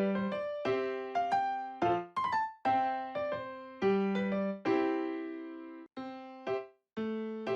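Background piano music: an unhurried tune of single notes and chords, each struck and left to fade.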